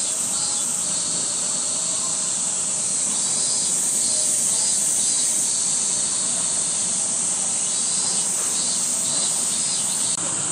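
Steady, high-pitched insect chorus, with a pulsing chirp joining in three short runs of a few beats each.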